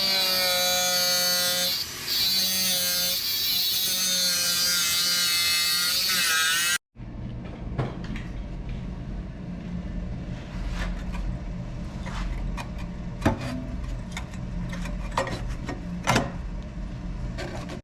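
A power cutting tool whines steadily as it cuts the Jeep body tub's sheet metal for about seven seconds, then cuts off suddenly. Scattered light knocks and clicks follow, as metal parts are handled.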